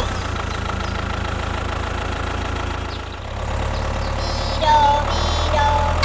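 Diesel tractor engine running steadily with a knocking clatter. It dips briefly about three seconds in, then picks up again.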